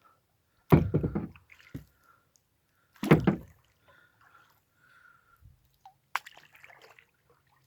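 Kayak paddle dipping into calm lake water: two splashing strokes a little over two seconds apart, then a softer drip and slosh near the end.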